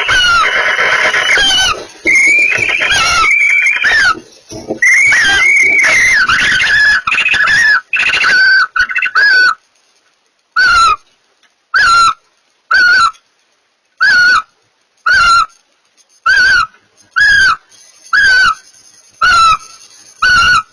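Barn owls calling during mating. For about the first ten seconds the calls come in a dense run of overlapping squeals that glide up and down. After that they settle into short, downward-arching calls repeated about once a second.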